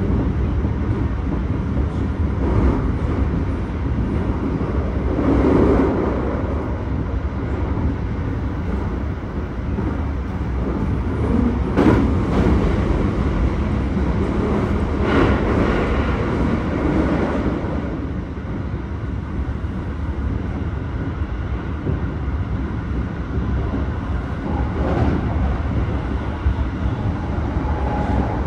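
Keikyu 1000 series electric train running, heard from inside the passenger car: a steady low rumble of wheels on rails, with a few brief louder knocks along the way.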